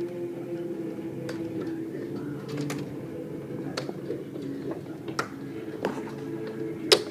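Large hailstones, about golf-ball size, striking the yard one at a time: scattered sharp knocks a second or more apart, the loudest near the end, over a steady low hum.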